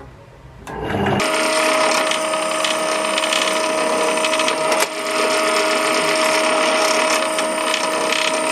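Small benchtop drill press starts up about a second in and runs steadily while its bit is fed down, drilling a hole in a hand-held block of wood.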